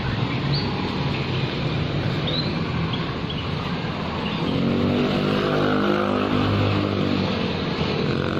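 Motor vehicle engine running nearby over a steady low hum, its pitched engine note growing stronger about halfway through.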